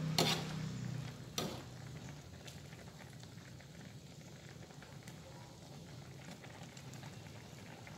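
A metal ladle knocks twice against a wok near the start while scooping coconut-milk vegetable soup and pouring it into a bowl, over the soft, steady sound of the soup simmering.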